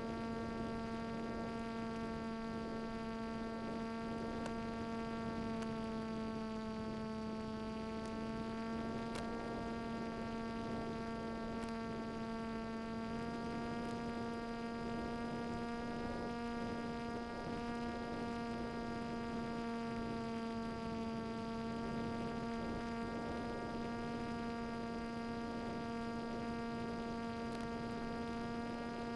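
Steady buzzing drone of an FPV flying wing's electric motor and propeller, heard through the hissy audio of the 5.8 GHz video link. Its pitch dips and shifts slightly a few times.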